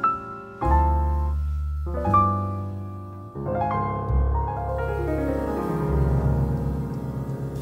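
Background music led by piano: held notes and chords over a low bass, with a run of falling notes in the middle.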